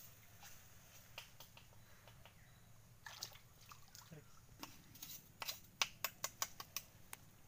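Wet, shallow mud and water being worked by hand and bolo knife in a mangrove creek bank: faint scattered clicks, then about five seconds in a quick run of sharp clicks and small wet smacks.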